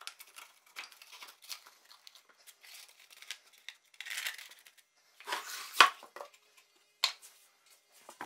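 Light handling noise of a pine box and the abrasive sanding sleeve inside it: small clicks and rustling scrapes, a longer scrape about four seconds in, and a sharp wooden click just before six seconds, with another about seven seconds in.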